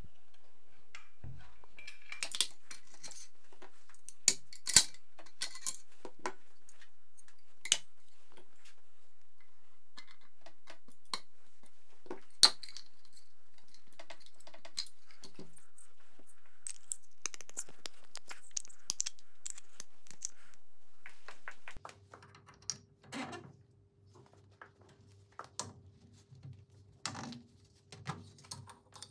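Sharp metallic clicks and clacks, scattered and irregular, as a Vityaz-SN submachine gun is taken apart by hand and its parts are handled. About three-quarters of the way through, a steady low hum comes in under lighter handling and rubbing noises.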